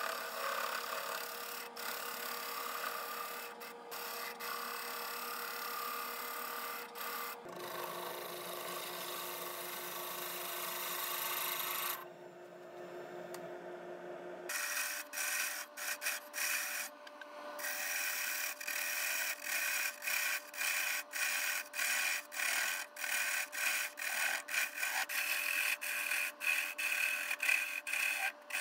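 Wood lathe running with a steady motor hum while an abrasive sanding stick rubs against the spinning wood blank. Over the second half a turning gouge cuts the spinning wood in quick, repeated scrapes. The hum jumps in pitch twice.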